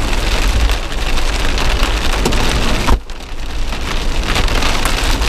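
Rain falling on the roof of a vehicle, heard from inside the cabin: a steady hiss over a low rumble, which drops out briefly about three seconds in and then returns.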